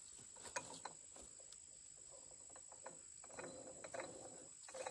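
Insects droning steadily in a high, even pitch, with a few faint clicks and knocks from handling.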